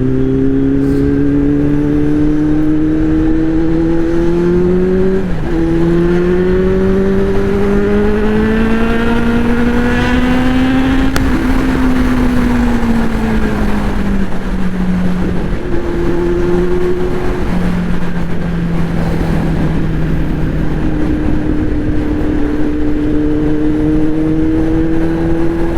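Kawasaki inline-four motorcycle engine under way over a rush of wind. The engine pulls up in revs, drops sharply about five seconds in as it shifts up, and climbs again to around eleven seconds. It then eases off and settles to a fairly steady cruise.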